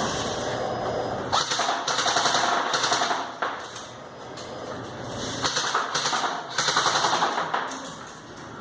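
Airsoft M4 rifle firing on full auto in bursts of rapid clicking shots: one of about two seconds starting just over a second in, then two shorter bursts near the end.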